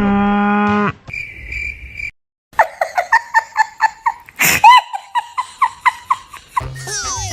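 Cartoon-style sound effects: a held low buzzy tone for about a second and a faint high beep. After a short gap comes a run of quick chirping blips, about four a second, with a loud whoosh in the middle. Near the end, music with a falling slide comes in.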